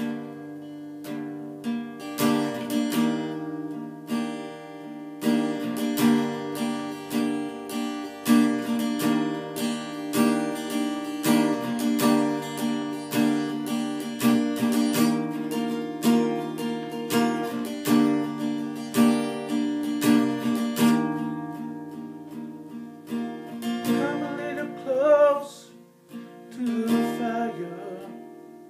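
Acoustic guitar strummed steadily in even strokes through a chord progression, in an instrumental passage of a song. Near the end a short wavering vocal line comes in over the strumming.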